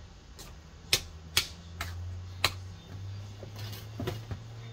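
Several sharp clinks of a spoon against a stainless steel saucepan while mashed potatoes are worked, over a steady low hum.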